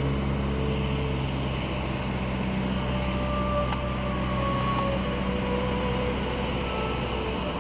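Steady drone of a light aircraft's engine and propeller in cruise, heard inside the cabin, with two faint clicks in the middle.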